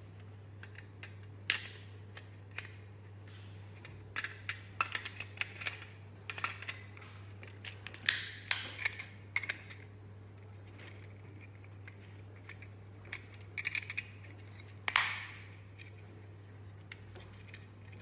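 Parts of an aluminium-alloy panel wall socket being handled and fitted together by hand: the plastic socket module and black metal mounting frame click, snap and scrape against each other in irregular clusters, loudest about eight seconds in and again near fifteen seconds.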